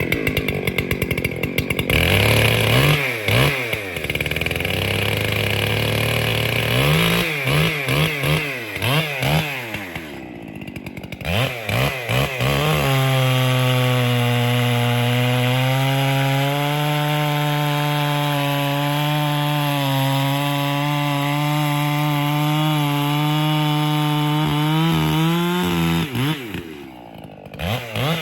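Echo 7310 chainsaw with a dual-port muffler revving up and down in bursts, then held at steady full throttle for about thirteen seconds as it cuts through a spruce log. The engine note drops off briefly near the end before revving again.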